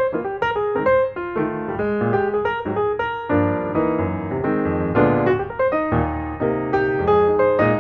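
Background piano music, a continuous run of notes and chords.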